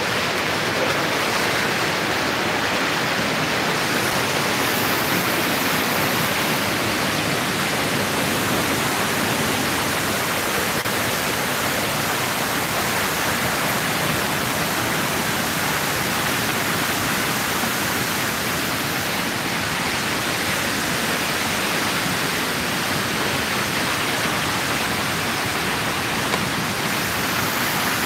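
Fast mountain river rushing over rocks in white-water rapids, a steady, unbroken water noise.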